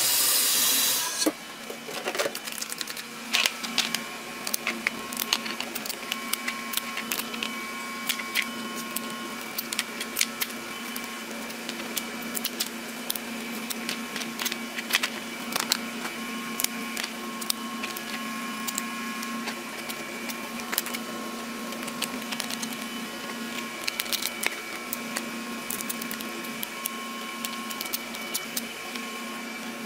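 Steam hissing loudly from a steel steamer for about the first second, then scattered clicks and snaps of cooked king crab shell being handled and cut with scissors, over a steady mechanical hum.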